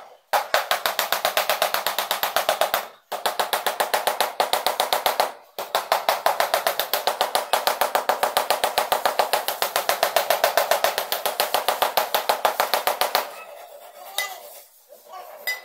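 Rubber mallet tapping rapidly on a large ceramic floor tile to bed it into the mortar, about seven knocks a second in runs broken by brief pauses, stopping near the end.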